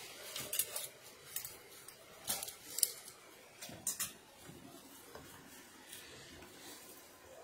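Clothes hangers with metal hooks clicking and scraping along a clothes rail as shirts are pushed aside: several sharp clicks in the first four seconds, then only faint handling of the fabric.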